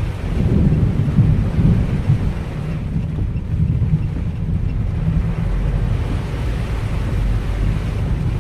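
Typhoon storm noise: a deep rumble of heavy wind and rain that swells over the first two or three seconds, then holds steady.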